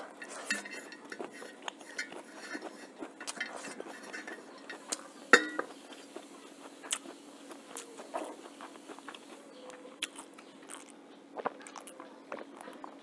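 Fingers scraping and tapping on a metal plate while gathering up leftover rice, with scattered light clinks, the loudest about five seconds in.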